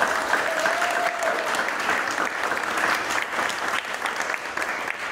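A small group of people clapping their hands steadily.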